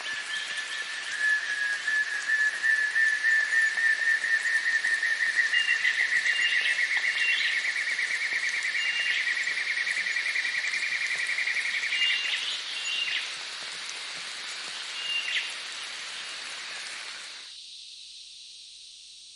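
Evening nature ambience: a steady high hiss of insects, with a loud fast trill that rises slightly in pitch and stops about twelve seconds in, and short whistled chirps over it. Near the end the lower part of the ambience cuts off suddenly, leaving only the high hiss.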